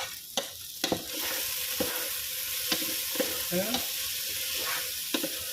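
Vegetables, including carrots, sizzling as they fry in a pan, with a steady hiss that grows about a second in. A utensil stirring them makes short scrapes and taps against the pan every half second or so.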